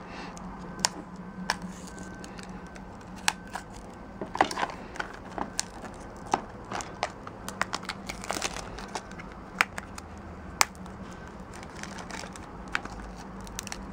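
Shrink-wrap plastic on a Blu-ray case being cut with a knife and picked at by fingers: scattered small clicks and crinkles of the plastic, over a low steady hum.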